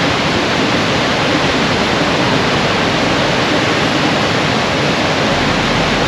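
Steady roar of the Potomac River's falls, white water pouring over steep, jagged rocks.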